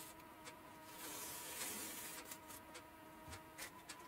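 Green masking tape being peeled off a model aircraft wing: a soft rasping hiss lasting about a second near the middle, with scattered small clicks and taps of handling.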